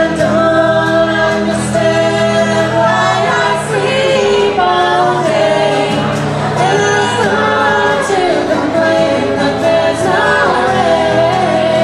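Live acoustic song: female voices singing together over two acoustic guitars.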